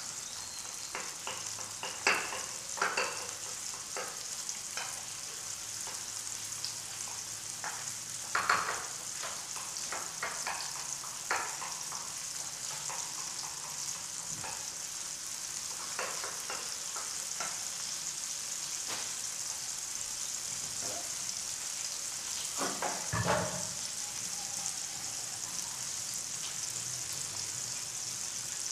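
Chopped tomatoes, chili, shallots and garlic sizzling in an aluminium wok, a steady frying hiss while they cook down until soft. A metal spatula knocks and scrapes against the pan now and then, most loudly about 8 seconds and 23 seconds in.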